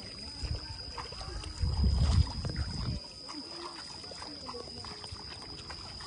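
Open-air paddy-field ambience: a steady high-pitched insect drone with faint distant voices and light trickling of water. A low rumble of wind on the microphone swells for about a second and a half near the middle and is the loudest sound.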